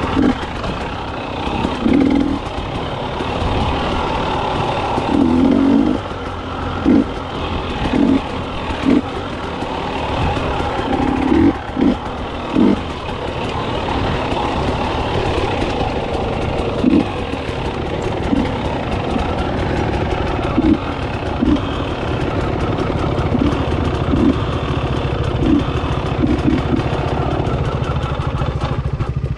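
KTM 300XC two-stroke dirt bike engine running under way, its note surging in many short, irregular bursts.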